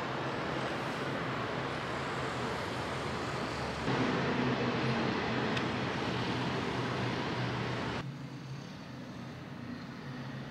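Steady outdoor city traffic noise with a low hum, a little louder from about four seconds in. About eight seconds in it drops to a quieter room tone.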